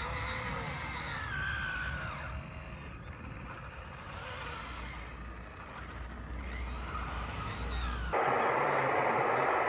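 Electric motors and hydraulics of radio-controlled scale construction machines whining, their pitch rising and falling as the models move. About 8 s in, this gives way abruptly to a louder, steady rattling noise.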